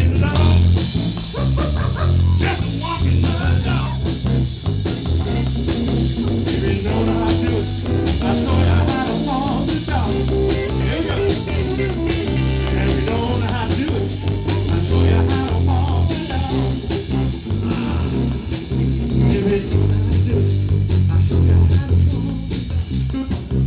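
A live blues band playing, with electric guitar leading over a bass line and drums.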